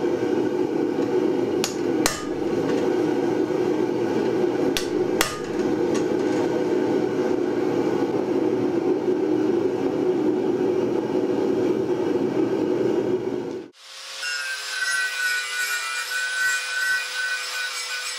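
A steel punch struck with a hammer on a red-hot steel bar on the anvil: light strikes, two close pairs and a single, in the first few seconds, over the steady rushing of the forge. About two-thirds of the way through this cuts off abruptly, and an angle grinder runs with a steady high whine.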